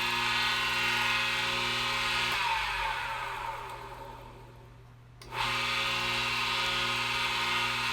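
Electric tile saw motor, running on a freshly fitted 608Z roller-skate bearing in place of a seized one, with a steady whine. About two seconds in it is switched off and winds down with a falling pitch, then about five seconds in it is switched back on and runs up to speed again.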